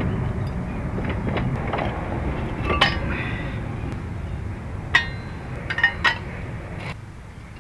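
Four sharp metallic clinks with a brief ring as a brake caliper is handled and set down on a metal chair seat, the first about three seconds in and the other three between five and six seconds in, over a steady low rumble.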